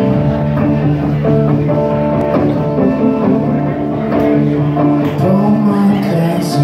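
Live rock band playing without vocals: two electric guitars, electric bass guitar and drum kit, a steady full-band groove of held guitar notes and chords.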